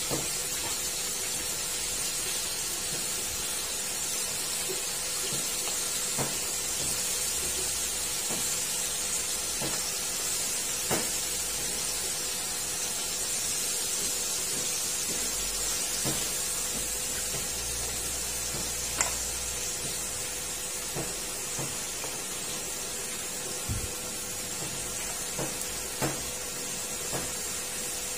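Crab pieces coated in flour deep-frying in hot oil in a wok: a steady sizzle, with occasional sharp clicks every few seconds.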